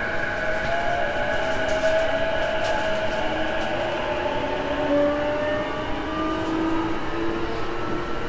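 Running sound inside a JR East E233 series motor car: the traction motors and inverter whine in several tones that climb slowly in pitch as the train gathers speed, over a steady rumble of wheels on rail, with the air conditioning running.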